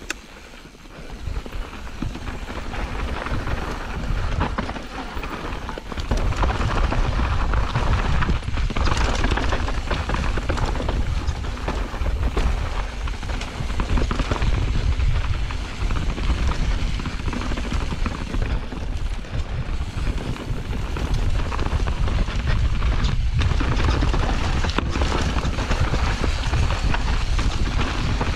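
Mountain bike riding fast down a rough trail: wind buffets the camera microphone with a low rumble, mixed with tyre noise and scattered knocks from the bike over the ground. It grows louder over the first few seconds as speed builds, then stays loud.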